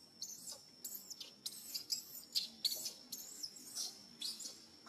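A baby macaque squealing and shrieking in a quick run of short, high-pitched cries, distress calls for its mother as it rolls on its back. A faint steady high tone runs underneath.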